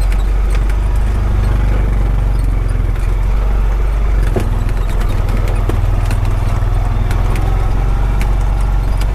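Honda Pioneer 520 side-by-side's engine running steadily while it drives, with scattered light rattles and clicks from the machine.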